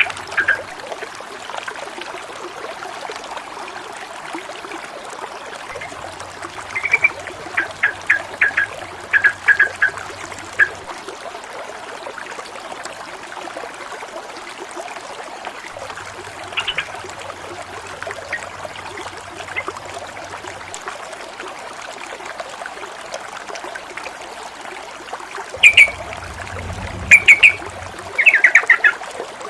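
Stream water running and splashing steadily. Birds give short chirping calls in bursts, a few in the first third and the loudest near the end.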